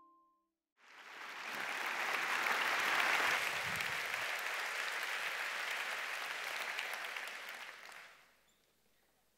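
Audience applauding, starting about a second in, swelling, then fading away near the end.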